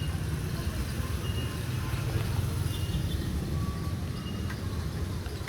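2007 Hyundai Starex minivan's engine running with a steady low rumble, its drive belt squealing in short high chirps that come and go.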